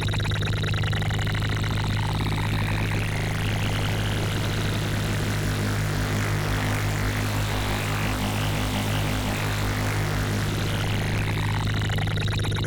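Synthesized sci-fi engine sound: a distorted wavetable swept by a stepped LFO over a steady low hum. It pulses fast, speeds up and rises like an engine revving as the mod wheel is pushed up, then slows back down near the end.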